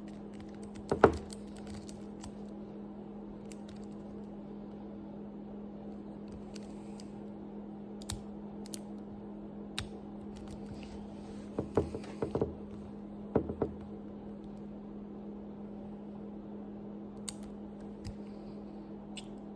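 Scattered small metallic clicks and ticks of a lock pick working the pins of a 50mm Ace Hardware padlock, with a sharper click about a second in. A steady low hum runs underneath.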